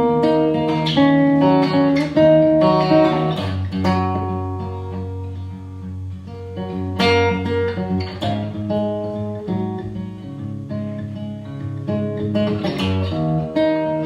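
Solo acoustic guitar playing an instrumental passage, notes and chords ringing out between sung lines of the song.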